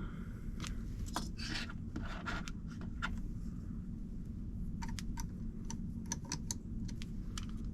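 Small hand-handling noises as a brass rod is tightened into the collet of a Dremel 4300 rotary tool: soft rubbing and scraping, then a run of short light clicks in the second half.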